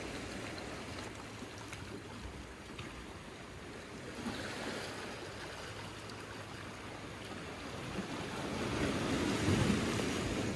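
Small sea waves washing over rocks and pebbles along a rocky shoreline. The wash swells about four seconds in, and again, louder, near the end.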